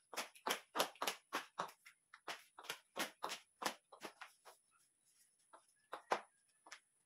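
Quick footsteps on a hard floor, about three a second, then a few scattered knocks and scuffs near the end.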